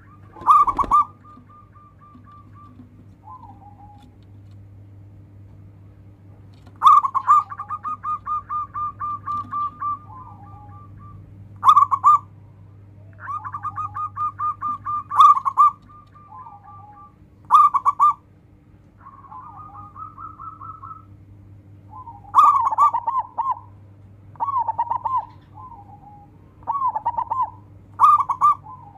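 Zebra dove (perkutut) singing in phrases of quick, clipped coos at a steady pitch. Some phrases run on as rapid trills two to three seconds long, and the phrases come closer together near the end. A low steady hum runs underneath.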